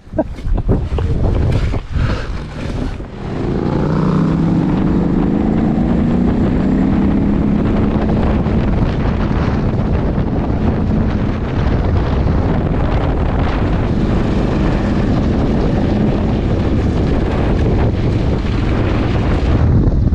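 Twin-cylinder KTM adventure motorcycle engine pulling away, rising in pitch for a few seconds, then running steadily under heavy wind noise on the microphone.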